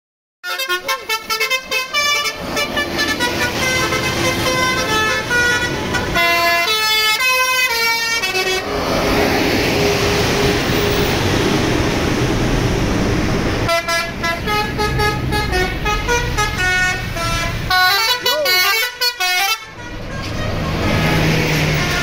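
Indonesian "basuri" telolet bus horn playing a fast multi-note tune, twice, with a stretch of loud engine and road noise in between as the bus passes close.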